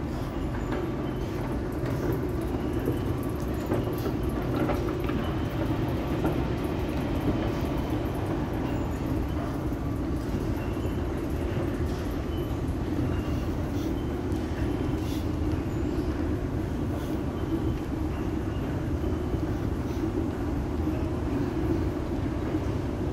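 Steady low mechanical rumble and hum of an underground subway station's machinery, with the escalators running. It holds level throughout, with a few faint ticks.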